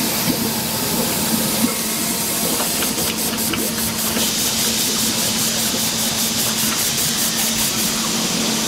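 Pulp-moulding production line machinery running: a steady hiss of air with a constant low hum. From about three seconds in until near the end, a fast, even high pulsing comes in at about four beats a second.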